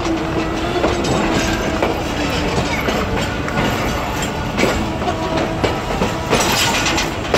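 Passenger train wheels rolling slowly over station pointwork, clicking and knocking over rail joints and crossings as the train changes tracks, with a faint steady squeal at times.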